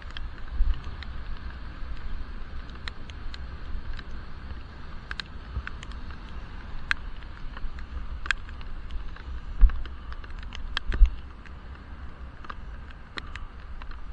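Muffled wind and road rumble heard from inside a helmet-mounted action camera's waterproof case on a moving bicycle, with scattered sharp ticks and two louder low thumps about ten and eleven seconds in.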